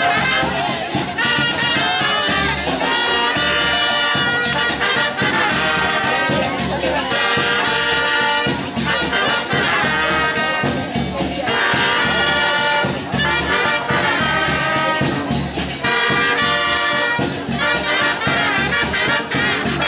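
Street brass band playing, trumpets and trombones carrying the tune in repeated phrases over a steady low beat.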